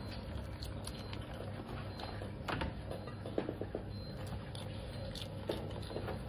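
Animals eating raw vegetables: a few short crunchy bites and chewing, with a quick run of crunches about halfway through, over a steady low hum.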